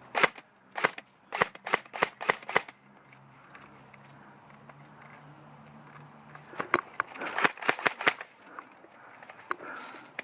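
Airsoft guns firing: about seven sharp single pops spaced over the first few seconds, then a quicker cluster of shots around seven to eight seconds in, with a few faint shots near the end.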